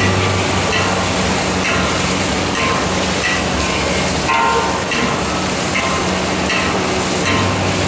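Meatballs and tofu in thick sauce stir-frying in a steel wok, a metal spatula scraping and clattering against the pan every second or so over a steady loud rushing noise with a low hum.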